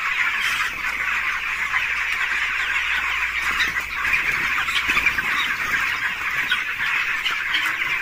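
A large flock of young broiler chickens peeping and chirping, many overlapping calls forming a steady, dense chatter.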